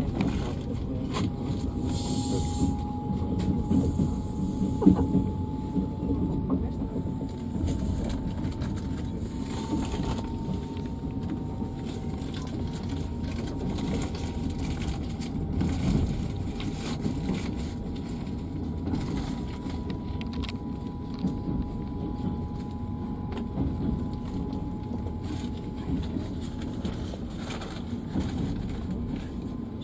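Passenger train rolling out of a station, heard from inside the carriage: a steady rumble of wheels on track with scattered light clicks, and a thin whine slowly rising in pitch as the train gathers speed.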